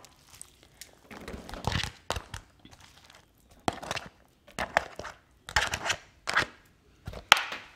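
Raw ground chicken being pulled by hand out of a plastic packaging tray into a plastic mixing bowl: a run of short, irregular rustles and scrapes of the plastic tray against the bowl.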